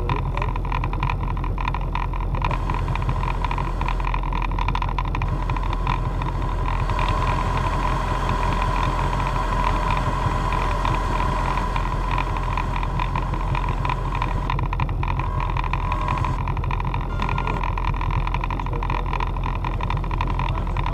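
Motorboat engine running steadily, heard from the boat's stern, over a steady rush of wind and water.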